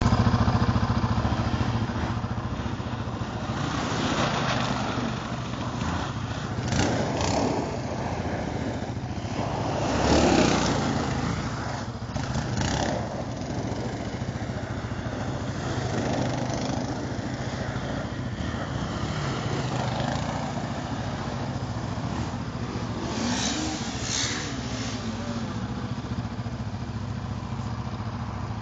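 Yamaha Raptor sport ATV's single-cylinder four-stroke engine running throughout while being ridden, revved up in repeated surges, the biggest about ten seconds in.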